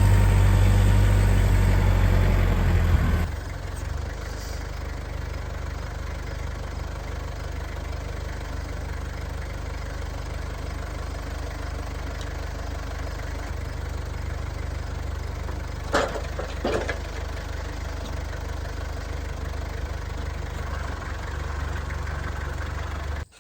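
An engine running steadily, louder for the first three seconds and then settling to an even hum, with a couple of sharp knocks about two-thirds of the way through.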